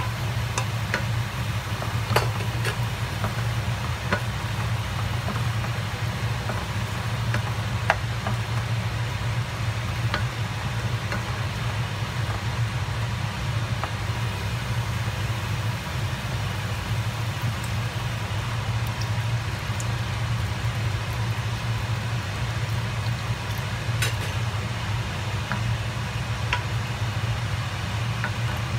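Chicken and mushrooms sizzling in a stainless steel frying pan while a wooden spatula stirs them, with a few sharp clicks of the spatula against the pan. A steady low hum runs underneath.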